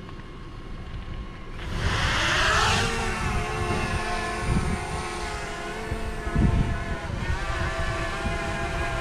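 DJI Mavic Mini quadcopter taking off: about a second and a half in its motors spin up with a rush of air and a rising whine, which settles into a steady high propeller whine as it climbs and hovers. Under it runs a low rumble, with a dull thump about six seconds in.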